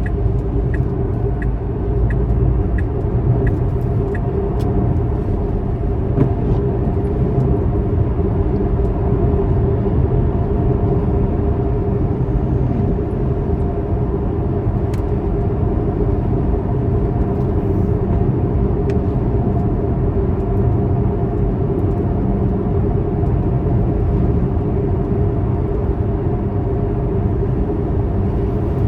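Steady road and engine rumble of a car driving, as heard from inside the cabin. A light, even ticking, a little under two a second and typical of a turn signal, stops about four seconds in.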